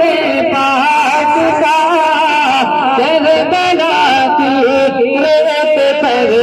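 A man's voice singing a long, ornamented melodic line in naat style, the pitch wavering and sliding continuously without a break.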